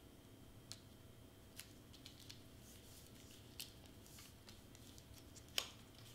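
Faint handling of a foam-and-acetate shaker piece pressed together by hand: scattered small clicks and light crinkling, with one sharper click near the end.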